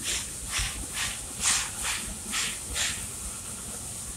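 Dixiana, a Shay geared steam locomotive, working under steam: exhaust chuffs from its stack about two a second, which stop about three seconds in, leaving a softer steady hiss.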